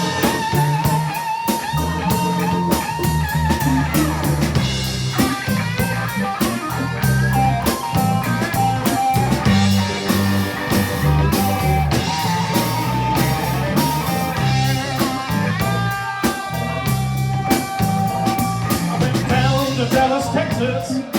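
Blues band playing an instrumental passage: an electric guitar lead with long, bent, held notes over bass and drums.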